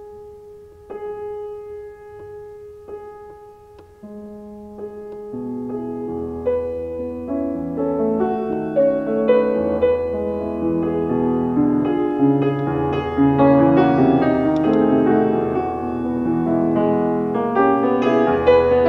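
Solo grand piano playing a classical piece. A few quiet, spaced notes ring out at first; from about four seconds in, a fuller flowing passage with bass notes builds steadily louder.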